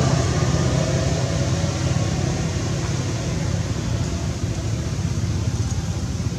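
Steady low rumble with an even hiss over it, with no distinct event.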